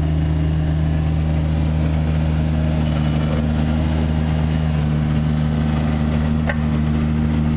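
Three-cylinder diesel engine of a compact excavator running steadily at an unchanging speed.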